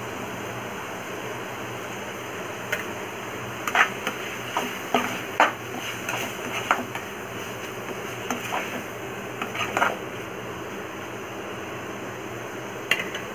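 Spatula scraping and knocking against a metal pan while prawns are stirred: a run of short scrapes and taps from about three seconds in until about ten seconds, and one more near the end, over a steady low hiss.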